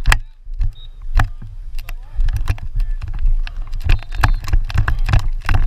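Irregular sharp clacks and knocks from lacrosse play, over a low steady rumble of wind on the microphone.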